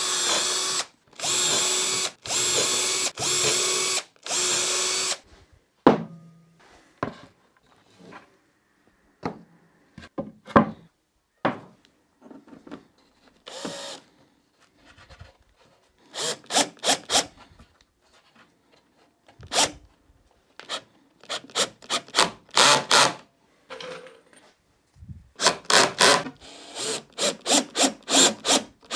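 Cordless drill boring into OSB board with a wide bit: five runs of about a second each with a steady whine. After a pause with a few knocks, many short trigger bursts follow as it drills with a countersink bit.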